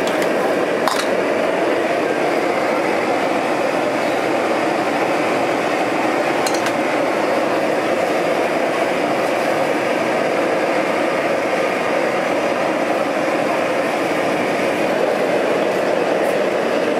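Steady roar of a gas burner heating a large pot of boiling water, even throughout, with a few light clinks of metal utensils.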